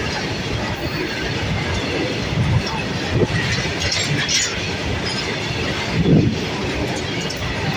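Open-top freight wagons of a long freight train rolling past at close range: a steady rumble of steel wheels on the track, with a few heavier knocks as the wheels pass over rail joints.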